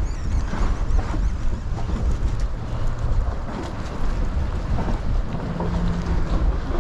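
Wind buffeting the microphone, a steady low rumble over the lapping of choppy water around a small boat.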